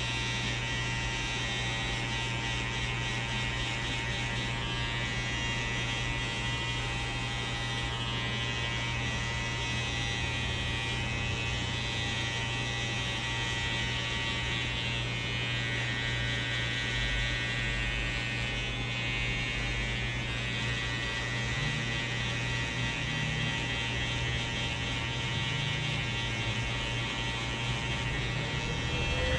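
Electric hair clippers running with a steady buzz while cutting a fade.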